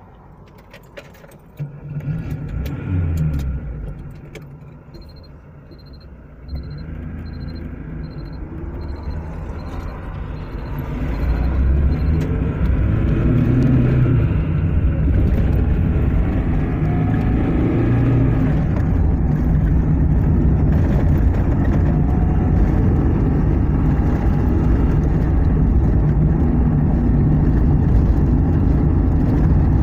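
An IZh-2126 Oda car starting off and driving: its engine and road noise build up from about ten seconds in and then run steadily. A faint beep repeats about twice a second in the middle.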